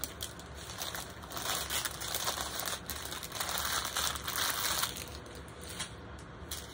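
Plastic packaging crinkling as small clear bags of diamond-painting drills are handled, coming in a few irregular stretches, the longest in the middle.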